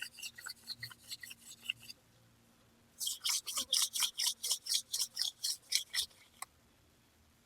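Hand drill for friction fire: palms rubbing a wooden spindle back and forth as its tip grinds into the hearthboard, drilling the socket. A faint quick run of rasping strokes, a pause of about a second, then a louder run of about four strokes a second that stops shortly before the end.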